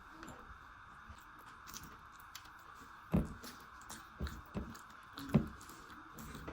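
Close-miked mouth sounds of a person chewing food, with several sharp, louder bites or smacks from about three seconds in, over a steady hiss.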